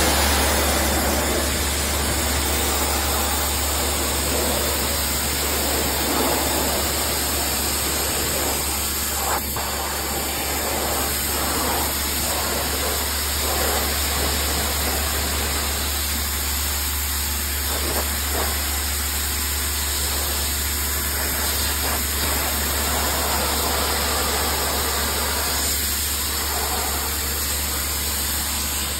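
Pressure washer spraying wooden deck boards: a steady hiss of the water jet on the wood over a low, constant machine hum.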